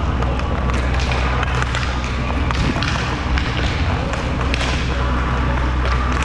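Skating rink sound: a steady low rumble of skates on the surface, with many sharp knocks and taps scattered throughout.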